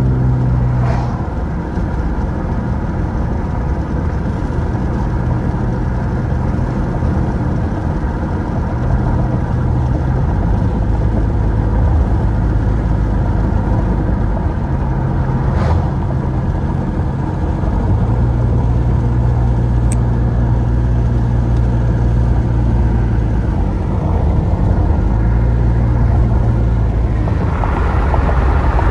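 Car driving, heard from inside the cabin: a steady low drone of engine and tyre noise, its pitch stepping up and down every few seconds as the speed changes, with a single faint click partway through.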